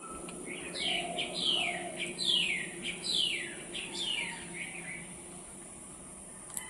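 A bird calling a series of about six quick falling notes, each sliding down in pitch, over the first four seconds, then stopping. A steady high hiss and a faint low hum run underneath, with a single short click near the end.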